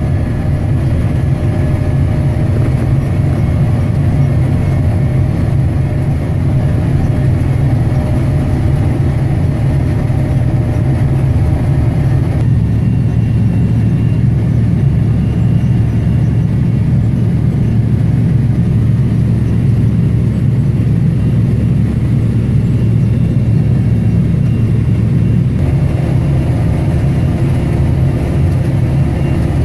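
Steady drone of a heavy diesel farm machine, a combine or tractor, running at work. Its tone changes abruptly about twelve seconds in and again a few seconds before the end.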